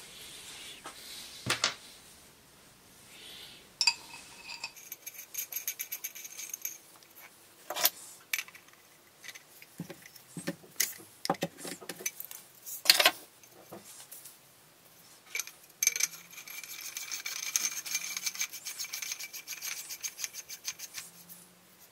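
Metal airgun parts being handled and screwed together on a workbench: scattered clinks and sharp knocks of metal tubes and tools, and a spanner working a fitting on the air cylinder. A few seconds in, and again for several seconds near the end, there is a run of fast ticking with a thin squeal.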